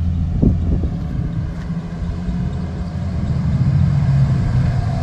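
Tuned Nissan 350Z's 3.5-litre V6 running through its modified exhaust as the car drives up at low speed, with a deep, steady note that grows louder as it comes closer in the second half.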